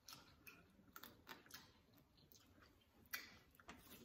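Faint, scattered clicks and crackles of eating boiled blue crab: shell being handled and cracked with gloved hands, and chewing. The loudest click comes a little after three seconds in.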